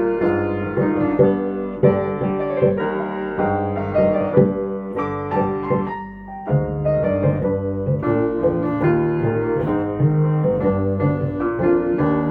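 Jazz piano and bass duo playing a slow ballad: piano chords and melody over walking, held bass notes, with a short pause in the phrasing about halfway through.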